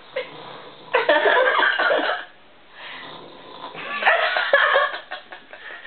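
A woman snoring heavily: two loud snores about three seconds apart, each lasting a little over a second.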